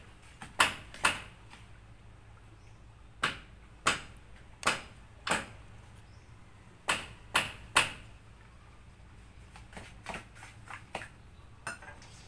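Metal ice scoop working crushed ice for a cocktail: a series of sharp, short clicks and crunches in groups of three or four, with lighter ones near the end.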